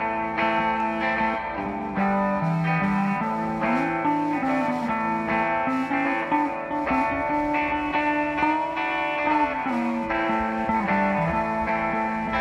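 Live rock band playing an instrumental passage led by electric guitars.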